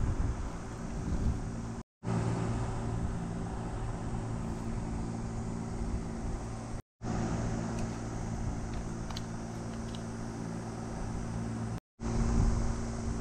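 Steady outdoor background noise: a low, even hum under a hiss. It drops to silence for a moment three times, at edit cuts.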